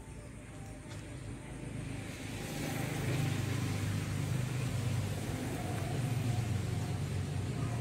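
A motor vehicle's engine running with a steady low rumble, growing louder over the first three seconds and then holding.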